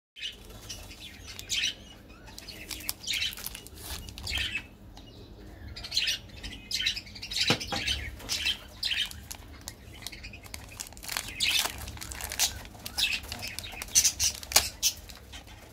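Plastic candy wrappers crinkling and rustling in short, irregular handfuls as sweets are unwrapped by hand, ending with a lollipop wrapper being peeled open.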